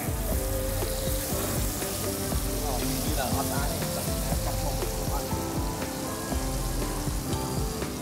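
Sliced meat sizzling steadily on a domed tabletop grill pan heated by a portable gas burner, with background music and chatter.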